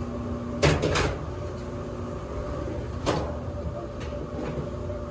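Knocks and clunks of dryer parts being handled and fitted during reassembly: a quick cluster a little under a second in and a single knock about three seconds in, over a steady low hum.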